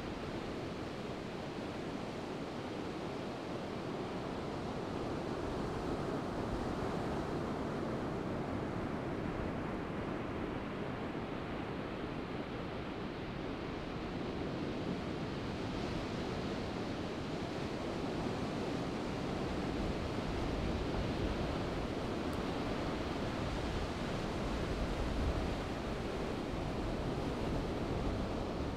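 Surf breaking and washing onto a sandy beach in a steady rush of noise that swells and eases slowly, with wind, and low gusts rumbling on the microphone in the second half.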